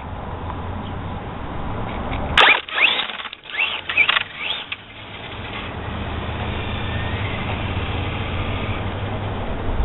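Traxxas Bandit VXL RC buggy's brushless electric motor whining in several sharp rising and falling sweeps under hard throttle, about two and a half to five seconds in, with a click at the first sweep. Around them is a steady low rumble and hiss.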